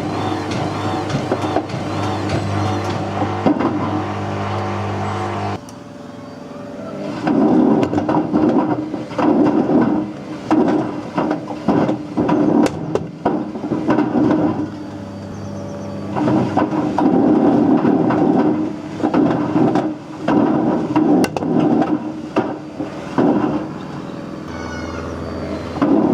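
Whirlpool WWDC 7210/1 washing machine turning its drum with a brick inside. There is a steady motor hum at first; from about five seconds in it changes to repeated, irregular loud banging and rumbling as the drum turns the brick over.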